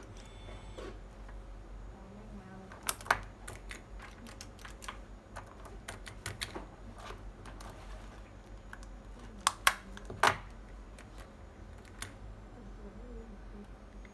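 Panel pushbutton switches clicking: sharp clicks in close pairs, as if pressed and released, a few seconds in and again about two-thirds through, with smaller ticks between, over a steady low hum.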